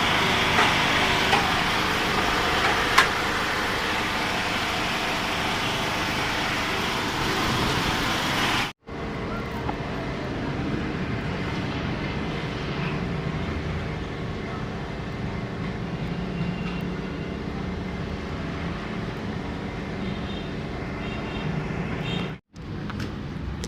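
Vehicle and traffic noise in edited cuts. First comes a loud, steady hiss with a few sharp clicks. After a cut about nine seconds in, a steadier, quieter engine-like hum follows.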